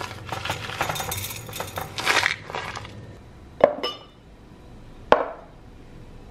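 Crunchy granola rattling out of a paper pouch into a glass, with the pouch crinkling, for about three seconds. Then two sharp clinks of dishes being set down on a table, about a second and a half apart.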